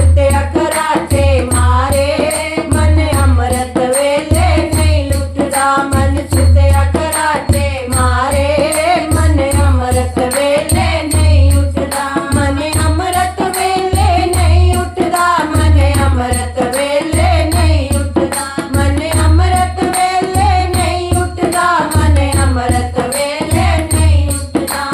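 Devotional bhajan kirtan music: a wavering melody over a deep, steady drum beat, with fast, even metallic jingling on top.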